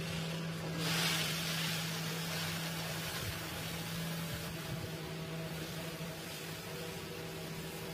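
Electric pedestal fan running with a steady hum, with a hiss of split chickpeas pouring in a stream from a brass plate onto a plastic sheet in front of it, loudest about a second in: dal being winnowed, the fan's draught carrying off the husks and dust.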